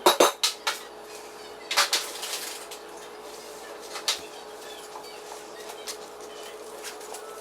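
A few sharp knocks and clatters of things being handled, a short scrape about two seconds in, then scattered light ticks over a steady hum.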